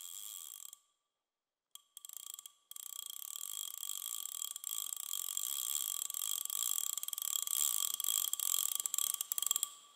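A small mechanism ratcheting: dense, fast clicking over a faint high steady ring. It stops and restarts abruptly twice in the first three seconds, then runs unbroken, growing a little louder before fading out near the end.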